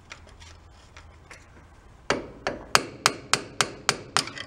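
Hammer tapping a steel punch against a keeper inside an old tiller's cast-iron gearbox: a few light metal clicks, then about nine quick, sharp strikes starting about two seconds in.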